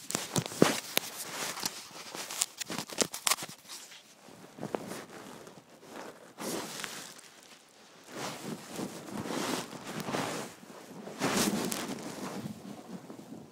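Handling noise from an iPhone microphone worn against the back of the head: a rapid run of clicks and crackles as it rubs and shifts, then swelling whooshing noise from about eight seconds in as the rider moves over the snow.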